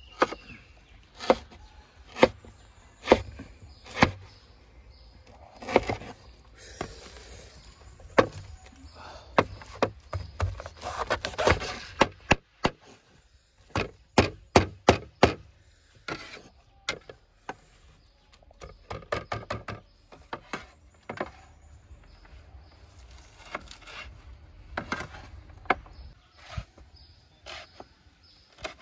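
Steel cleaver chopping lemongrass and a root on a wooden board: a series of sharp knocks, single strokes about a second apart at first, then quick runs of rapid chops about halfway through.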